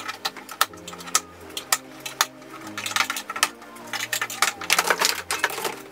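Quick, irregular clicks and clatters of hands working on the car's plastic trunk trim, busiest in the second half, over background music with slow held bass notes.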